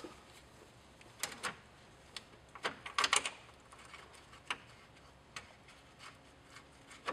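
Scattered light clicks and knocks as gloved hands handle an electric radiator cooling fan and its plastic shroud, with a small cluster of clicks about three seconds in.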